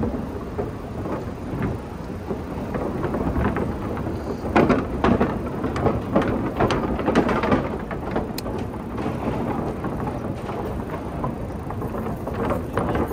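Steady rushing ride noise from an e-bike rolling along a trail, with scattered clicks and rattles, busiest from about four to eight seconds in.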